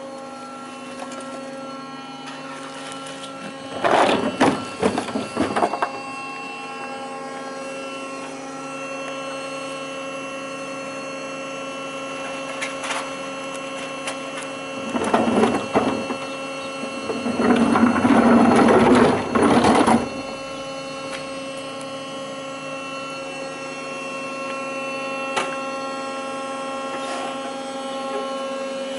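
Battery-electric rear-load rubbish truck (Manco ElectriCat 8.0) running its electric motor and hydraulics, a steady hum made of several fixed tones. Over it come three loud spells of rattling and clatter as recycling bins are tipped into the rear hopper: about four seconds in, around fifteen seconds, and a longer one from about seventeen to twenty seconds.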